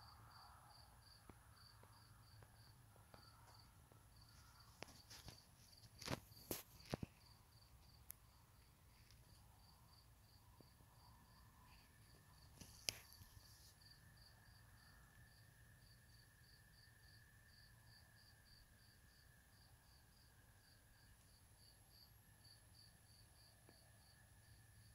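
Faint night chorus: short high peeps repeat evenly about two to three times a second over a steady faint high drone. Several sharp clicks come about six seconds in, and another near thirteen seconds.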